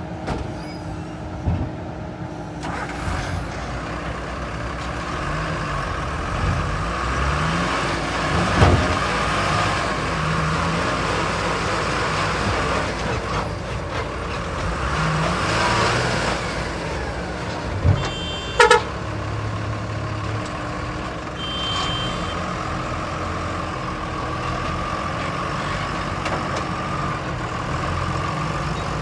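Diesel engine of a JCB 3DX backhoe loader running steadily while it works, with knocks and thumps from the machine. The loudest thump is about nine seconds in, and two sharp bangs come close together just before twenty seconds, the second one ringing briefly.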